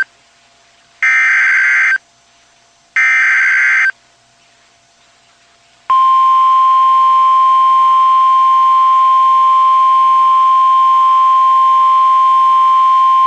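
NOAA Weather Radio alert signal: two roughly one-second bursts of SAME digital header tones a second apart, then about six seconds in the steady 1050 Hz warning alarm tone begins and holds. The sequence announces a flash flood warning.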